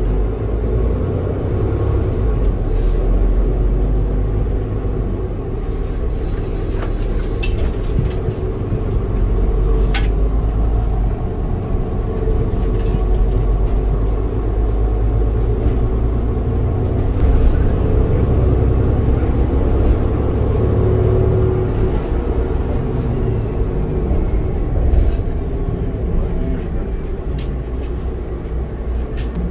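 City bus running, heard from inside the passenger cabin: a steady low engine and road rumble, with a few sharp clicks.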